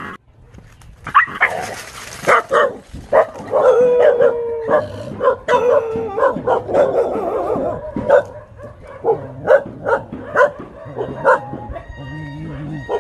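Dogs barking and yelping over and over, in alarm at a fake tiger, with a longer held, howl-like cry about four to six seconds in.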